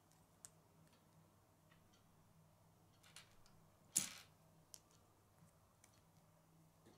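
Faint clicks of small plastic Lego bricks being handled and snapped together, with one louder, sharper click about four seconds in.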